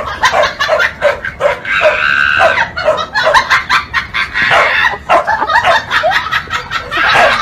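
Dogs barking and yapping in quick, high barks, about three a second, with one longer high cry about two seconds in.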